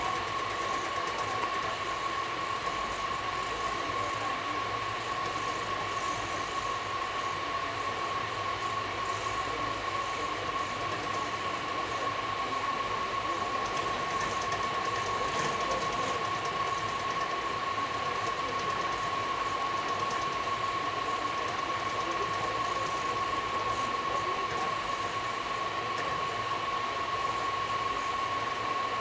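Express passenger train running, heard from inside an air-conditioned coach: a steady rush of running noise with a constant high-pitched whine over it.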